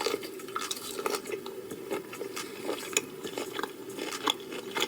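Close-miked mukbang eating: biting into and chewing a large prawn coated in Alfredo cheese sauce, with irregular wet squishes and sharp clicks over a faint steady hum.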